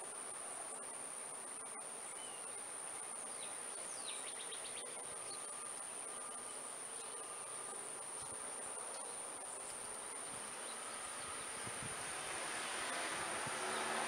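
A steady, high-pitched buzz of insects, with a brief faint trill about four seconds in. A rushing noise grows louder near the end.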